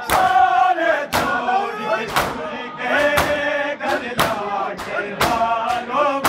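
A crowd of men chanting a noha in chorus while beating their chests in unison (matam), the sharp slaps landing about once a second.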